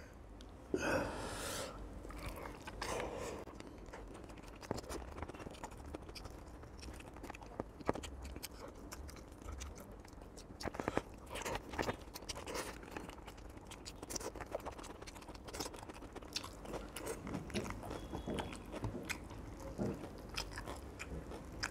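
Close-miked eating: chewing a mouthful of hand-mixed rice, with irregular soft crunches and small clicks as fingers pick apart fried fish on the plate.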